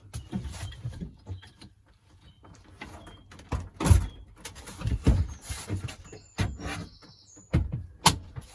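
Irregular thumps, knocks and scraping from a front-loading washing machine being handled and shifted, with a brief high squeak about two-thirds of the way through.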